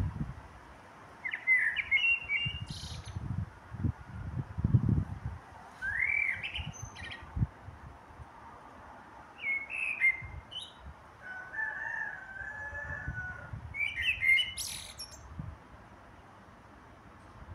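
A Eurasian blackbird singing: about five short fluty phrases a few seconds apart, some ending in very high squeaky notes. Irregular low rumbling bursts between the phrases are the loudest sound.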